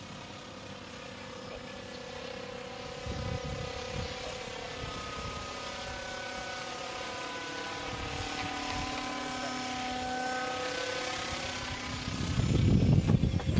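Motor and propeller of a small model Magnus-effect aircraft buzzing overhead, a steady droning tone whose pitch slowly shifts as it flies about. A louder low rumble near the end.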